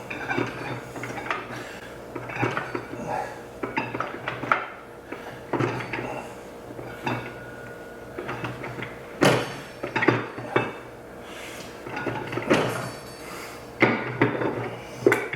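Steel transmission parts clinking and knocking as they are handled and worked into a 48RE transmission case, in irregular metallic clanks with a few sharper knocks in the second half.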